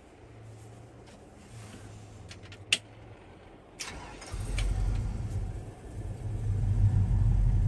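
Vortec 5.3-litre V8 with headers being started: a sharp click about three seconds in, then a brief crank, and the engine fires right up about four seconds in. After a short dip it settles into a loud, steady idle.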